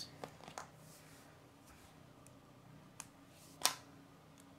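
K'nex plastic construction pieces being handled and fitted together: a few light clicks, then one sharper snap about three and a half seconds in.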